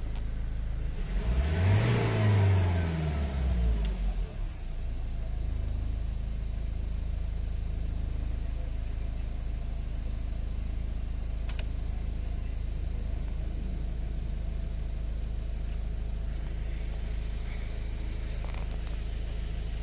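Ford Ranger 2.2 four-cylinder diesel engine revved once, its pitch rising and falling over about three seconds, then settling into a steady idle. The engine is running again after an injector rebuild.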